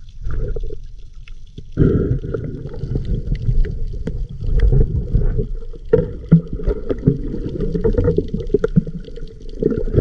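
Muffled underwater gurgling and sloshing with many scattered knocks, heard through a camera held under the sea.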